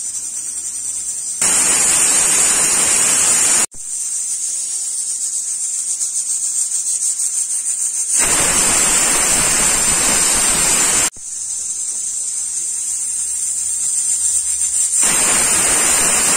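Aluminium stovetop pressure cooker under pressure: steam hissing steadily from the weighted vent, broken by three loud whistles of two to three seconds each, about 1.5, 8 and 15 seconds in. The third whistle is the signal that the khichdi is cooked soft and the stove can be turned off.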